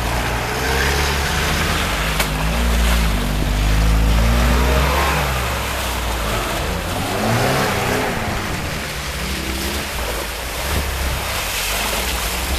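Lada Niva 4x4s driving past one after another through deep mud, their engines revving up and down under load, with tyres churning and splashing through the mud.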